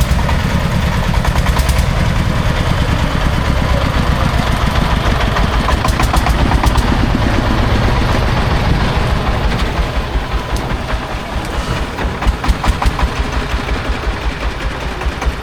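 Diesel engine of heavy site machinery running steadily with a rapid, even pulse, easing slightly in level about two-thirds of the way through.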